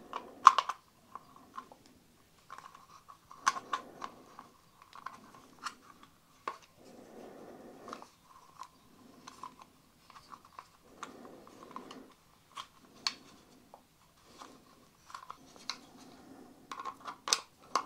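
Screwdriver and plastic battery-lock housing being handled: scattered sharp clicks and taps, with stretches of scraping and rubbing about a second long.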